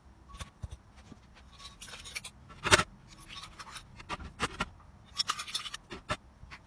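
Metal spoon scraping and clinking against a glass bowl as dry powdered feed is scraped out into a plastic container: irregular scrapes and light clinks, with one sharp clink about two and a half seconds in.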